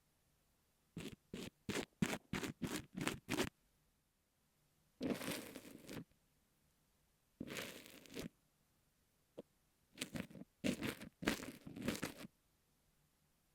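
An ear pick scraping and pressing kinetic sand on an earphone microphone, close up and crunchy. About a second in comes a run of short quick strokes, then two longer scrapes, and another run of strokes near the end.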